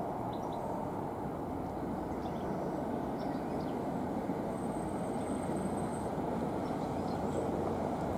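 GBRf Class 66 diesel locomotive, its two-stroke V12 engine running under power as it approaches at the head of a container freight train. It makes a steady low rumble that grows slightly louder.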